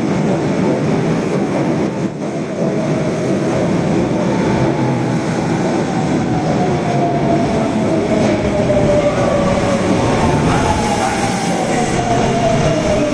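Osaka Metro Tanimachi Line subway train running, a steady loud rumble of wheels on rail. In the second half a thin whine slowly falls in pitch.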